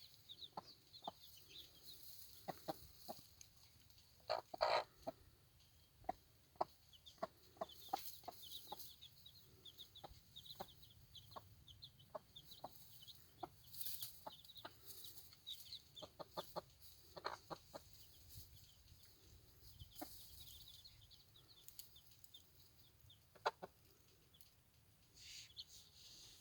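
Hen softly clucking in short, scattered calls, with her two-day-old chicks peeping.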